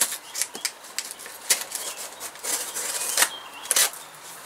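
Cardboard box flaps being pulled open by hand, giving a string of sharp crackles and scrapes, the loudest a little over three seconds in.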